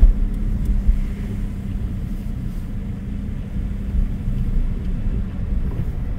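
A car driving slowly, heard from inside: a steady low engine hum and tyre rumble.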